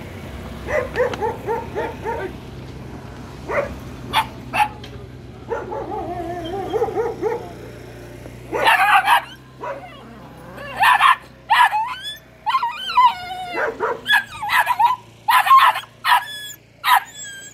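Dogs yapping and whining: short high yaps and a drawn-out whine in the first half, then loud barks in quick bunches over the second half.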